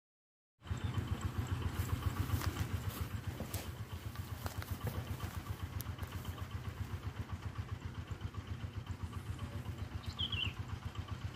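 A small engine idling steadily, a low, even, rapid throb that starts about half a second in, with a few faint clicks over it and a brief high chirp near the end.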